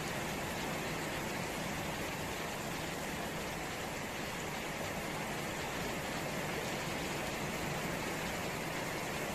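Steady rain falling on puddled ground and garden foliage, an even hiss with no breaks.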